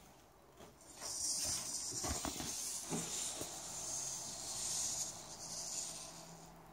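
Hobby servo motors of a desktop robot arm whirring as the arm swings and lowers its gripper: a high hiss-like whine that starts about a second in and fades near the end, with a few light clicks around two seconds in.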